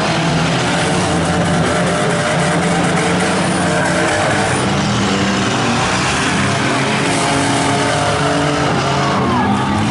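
Several compact derby cars' engines running and revving together, their pitches rising and falling and overlapping.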